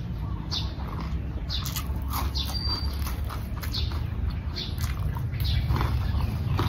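Close-miked chewing of fried pork: an irregular run of short, crisp mouth clicks and crunches, over a steady low hum.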